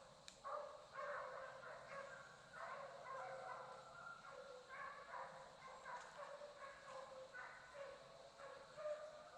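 Faint pack of deer hounds baying as they run a deer, a string of repeated cries coming one or two a second.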